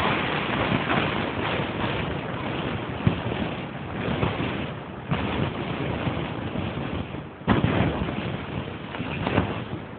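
Wind rushing across a handheld camera's microphone, a steady noise that swells and dips in gusts, with a sharp knock about three seconds in.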